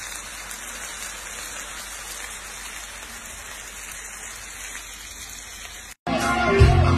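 Fish pieces frying in hot oil in a pan, a steady sizzle. It cuts off about six seconds in, and loud music with a heavy beat starts.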